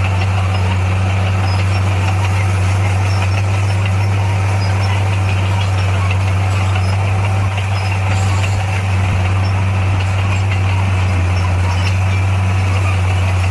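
Heavy construction machine's diesel engine running steadily with a deep, even hum.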